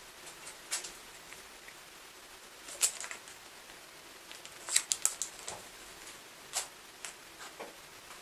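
A paperback book being handled and set down on a stack of paperbacks on a digital kitchen scale: scattered light taps, clicks and rustles, the sharpest a single tap about three seconds in and a quick run of clicks about five seconds in.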